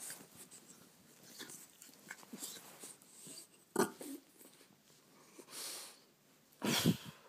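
French bulldog snuffling and breathing noisily in short irregular puffs while being petted, with a louder puff near the end.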